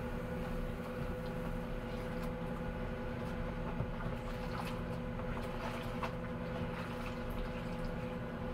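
Hands washing something in a sink of soapy dishwater, with splashing and dripping water and small clicks through the middle of the stretch. Under it is the steady hum of a running microwave oven.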